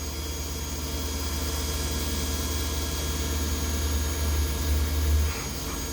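CNC milling machine running a looped drilling cycle: a steady low hum and whir that slowly grows louder, then drops off about five seconds in.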